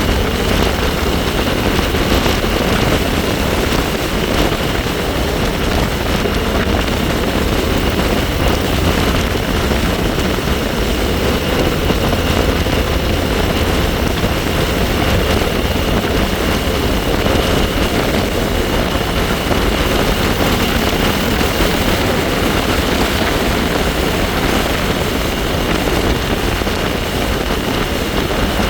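Wind rushing and buffeting over the microphone on a moving bike, with a steady high-pitched whine from the bike underneath. The level stays even throughout.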